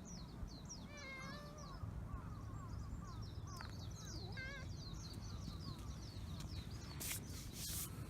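A cat meows once about a second in, then sneezes twice in quick succession near the end.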